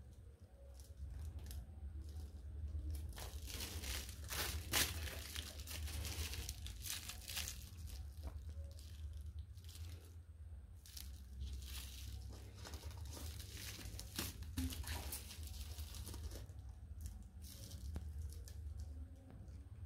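Plastic stretch-film wrapping being peeled off a mirror and crumpled, crinkling and tearing in irregular crackles, the loudest about five seconds in, over a steady low hum.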